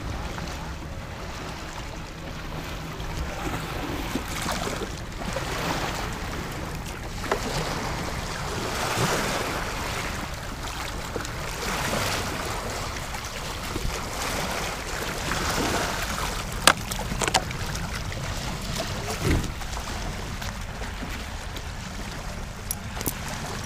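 Water splashing and lapping against an inflatable kayak as it is paddled in to a stone slipway, swelling every few seconds with the strokes. About two-thirds of the way through come two sharp knocks, the loudest sounds here, and a duller thump follows a couple of seconds later.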